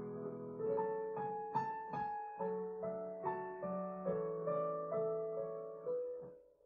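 Piano music: single notes played over held chords, dipping almost to silence just before the end.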